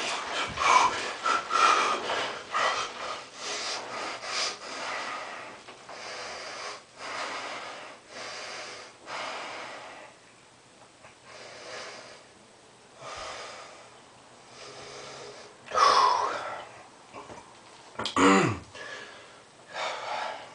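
A man breathing hard through his mouth and blowing into cupped hands while sitting in ice water: cold-shock breathing. The breaths come fast at first, then slow down with pauses between them. Near the end come two louder exhales, the second with a groan falling in pitch.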